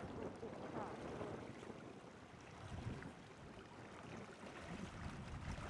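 Steady rush of a shallow, fast-flowing river over its riffles, with faint voices now and then.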